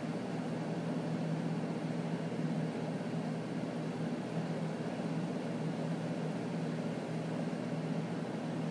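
Steady low hum under an even hiss: constant background machine or room noise.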